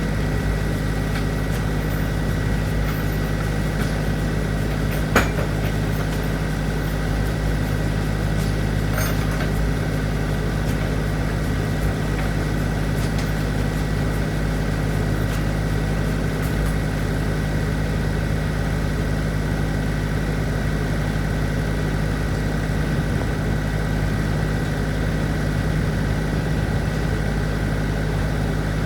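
An engine running steadily at a constant speed, with one sharp knock about five seconds in.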